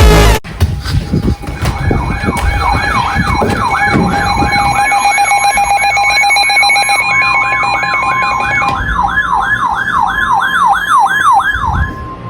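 Electronic siren alert sweeping quickly down in pitch about three times a second, over a steady electronic alert tone that steps up higher about two-thirds of the way through. Loud electronic music cuts off abruptly at the very start.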